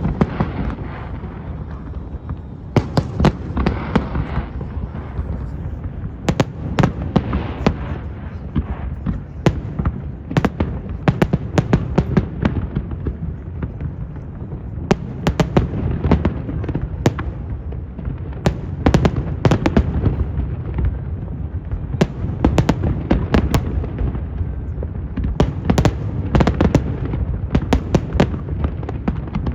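Aerial fireworks display: many sharp bangs and crackles going off in rapid, irregular succession over a continuous low rumble of shell bursts.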